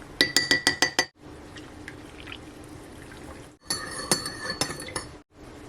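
A metal spoon clinking quickly against a ceramic mug while stirring coffee, in two rapid runs of ringing clinks: one near the start and another a little past halfway.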